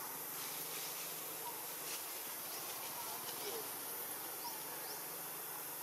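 Steady outdoor ambience: an even high hiss with faint, short animal chirps scattered through it.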